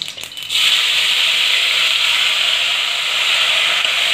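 Onion, garlic and ginger paste dropped into hot mustard oil in a steel pan: a loud sizzle starts about half a second in and carries on steadily as the paste begins to fry.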